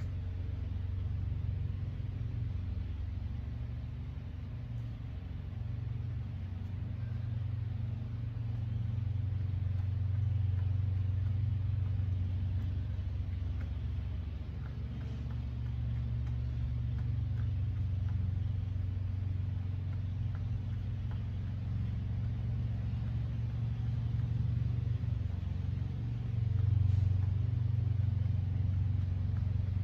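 A steady low mechanical hum and rumble, like a motor or machine running, swelling a little in loudness now and then.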